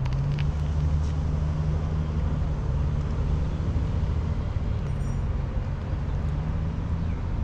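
A vehicle engine idling: a steady low hum with no change in pitch.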